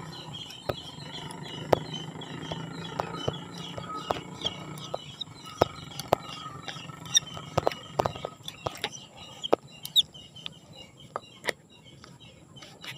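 Small birds chirping repeatedly in the background, with scattered sharp clicks and taps of close handling as fishing line is pulled in by hand.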